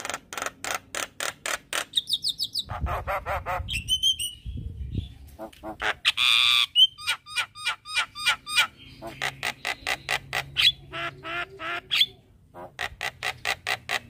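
Javan myna singing a fast chattering song of repeated sharp clicking notes, mixed with short whistles and a harsh rasping call about six seconds in.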